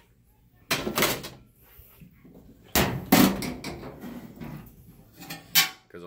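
Sheet-metal top panel of a Whirlpool Cabrio dryer being moved and lifted open, giving three loud clunks and scrapes about a second, three seconds and five and a half seconds in.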